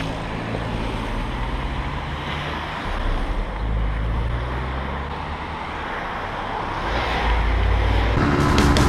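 Motorcycle engine running at low speed under wind rush on a helmet-mounted microphone, picking up briefly about three seconds in and again near seven. Music comes in near the end.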